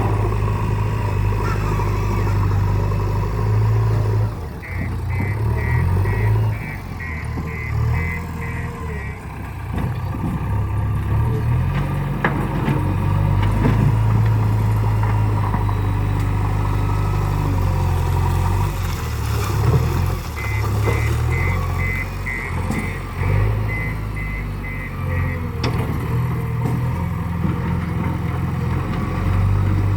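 JCB backhoe loader's diesel engine running under varying load, its pitch shifting as the machine works. A reversing alarm beeps about twice a second in two runs: one about five seconds in and one about twenty seconds in.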